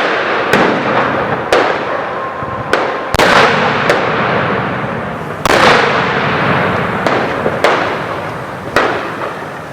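Firecrackers and fireworks bangs going off one after another, about ten in under ten seconds, each loud crack trailing off in a long echo.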